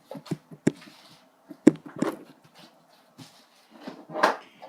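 Slime being handled and poked, giving a few sharp pops and squelches, loudest about two seconds in. A brief rushing noise follows near the end.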